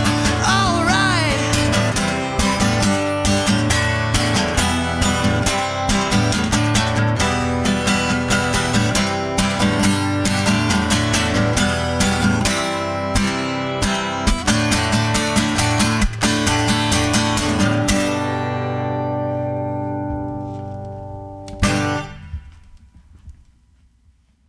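Instrumental ending of a rock song: strummed guitars over a steady beat. About three-quarters of the way in, the band stops on a final chord that rings out and dies away, with one last sharp hit shortly before it fades to silence.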